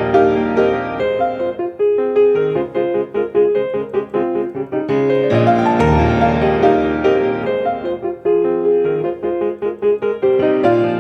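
Solo piano being played: a flowing passage of repeated and arpeggiated notes with sustained bass, swelling louder around the middle.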